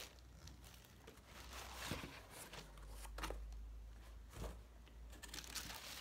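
Plastic packaging crinkling and rustling as vacuum cleaner parts are lifted out of a cardboard box, with a few sharper crackles in between.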